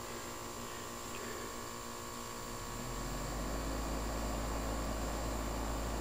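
A 2003 American Standard Allegiance 12 central air-conditioner's outdoor unit humming steadily. About three seconds in, the condenser fan comes back on and a louder rush of air joins the hum. The owner takes the fan's on-off cycling for a low ambient kit at work.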